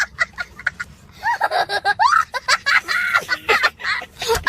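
Rapid, high-pitched cackling: a fast string of short, chirpy notes that rise and fall in pitch, cutting off abruptly at the end.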